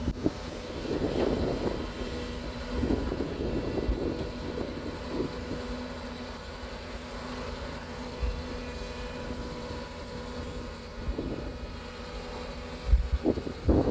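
Hyundai SMART 215L crawler excavator's diesel engine running steadily with a droning whine, with louder surges now and then.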